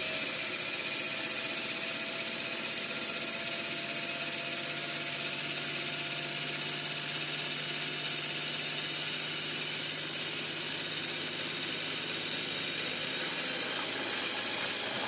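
A 3D-printed peristaltic pump, driven by an IKEA FIXA drill's motor and planetary gearbox, running steadily at full speed (100% duty cycle), with a steady whine over a hiss. Its outlet hose pours a stream of water into a stainless steel sink.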